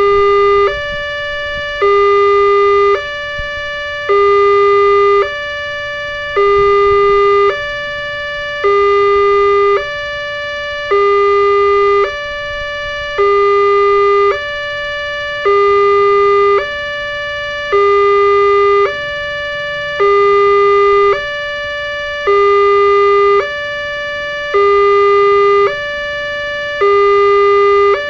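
Electronic level-crossing warning alarm sounding a two-tone signal, switching between a low and a higher tone about every second in an even, repeating cycle. It warns that a train is approaching while the crossing barriers are down.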